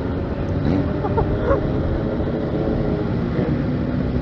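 Motorcycles riding in a group: a steady engine drone under a heavy, even rumble of wind on the microphone, with a couple of brief rises in engine pitch about a second in.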